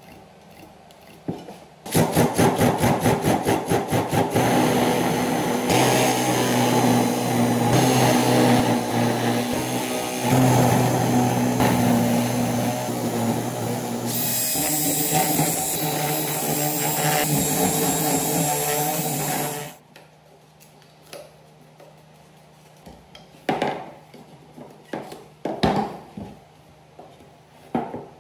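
Cordless drill boring holes through green bamboo stalks, the motor running loudly for about eighteen seconds with a fast stutter at first. It stops suddenly, and then a few hollow knocks come as bamboo poles are set against each other on a wooden table.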